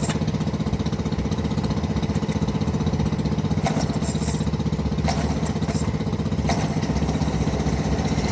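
Homelite two-stroke chainsaw engine idling steadily with no choke, with a few sharp clicks in the middle.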